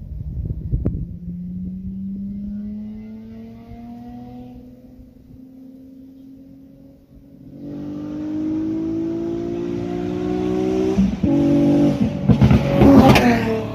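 A straight-piped Honda Accord V6 coupe with its electric exhaust cutout open, accelerating hard toward and past the microphone. The engine note climbs steadily and grows loud about eight seconds in. It dips briefly, is loudest as the car passes near the end, then falls in pitch as the car pulls away.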